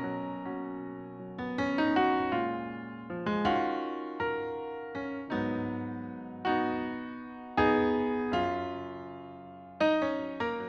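Background music: a solo electric piano playing slow chords that ring and fade, and it ends near the close.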